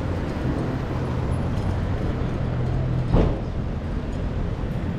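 City street traffic: a motor vehicle engine running steadily close by, with a short, loud sound a little after three seconds in.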